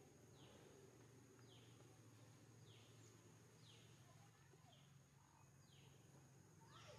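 Faint forest background: a short call falling in pitch, repeated about once a second, over a steady high insect drone.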